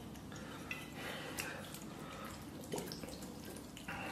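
Cap being unscrewed from a glass bottle of aged vinegar, a few small clicks, then vinegar trickling out of the bottle near the end.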